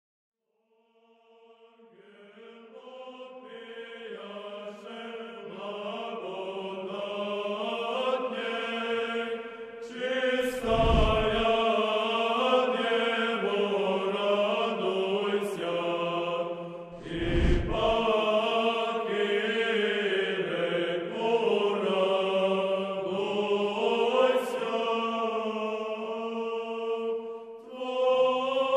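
Slow sung chant, with a held drone note beneath a moving melody, fading in over the first few seconds. Two deep booms land about 11 and 17 seconds in.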